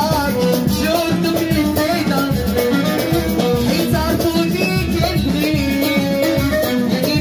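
Moroccan popular song: a lively, steady percussion beat under a melodic instrumental line.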